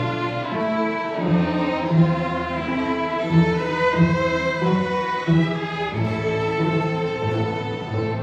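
Youth string orchestra of violins, cellos and double basses playing film music: sustained bowed notes over a bass line that changes pitch every second or so.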